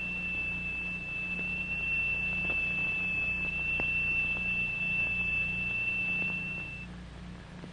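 A steady high-pitched tone from a crystal-excited triangular plate being driven at a higher note to form a sonorous sand figure; it cuts off about seven seconds in. A low hum runs underneath.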